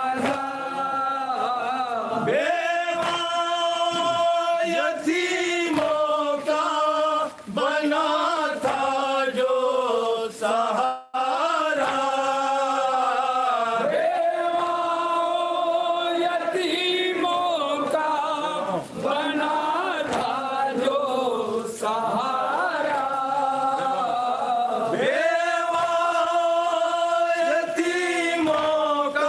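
Men's voices chanting a noha, a Shia mourning lament, together with long held notes, breaking off briefly about eleven seconds in.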